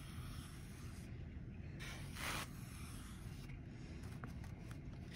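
Faint soft scraping of a pencil being dragged through a thin layer of sand on a paper plate, with one louder brief rush about two seconds in and a few light ticks near the end.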